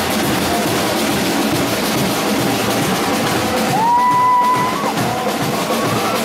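A parade percussion band drumming busily, with a single high note held for about a second near the middle.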